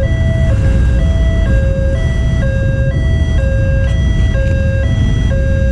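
Railway level-crossing electronic warning alarm sounding a steady two-tone alternation, about one high-low cycle a second, which signals that a train is approaching and the barrier is down. Road traffic and motorcycle engines rumble underneath.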